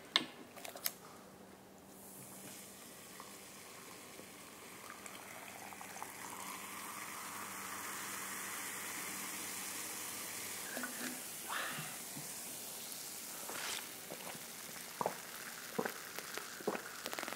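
Cola poured over ice into a glass mug, fizzing with a steady crackling hiss that builds up and then slowly dies away as the foam settles. A few sharp clicks come near the start and again toward the end.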